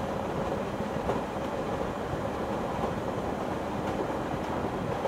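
SNCF Z 26500 double-decker electric train running at speed: a steady rumble of wheels on the rails with a few faint clicks.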